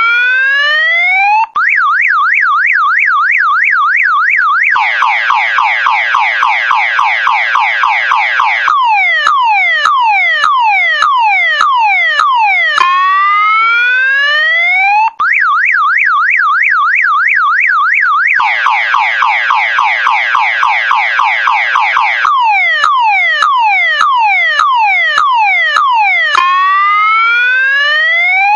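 Electronic multi-tone alarm siren, car-alarm style, cycling through its tones: rising whoops, a fast up-and-down warble, a rapid pulsing tone, then a run of quick falling chirps, the sequence starting over about every 14 seconds. It drops out for an instant twice.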